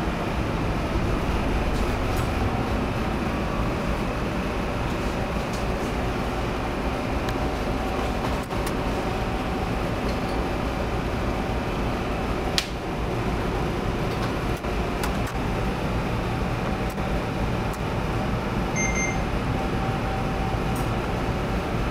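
Steady low hum of a supply vessel's engines and machinery heard inside the wheelhouse, with a single sharp click about halfway through and a faint short beep near the end.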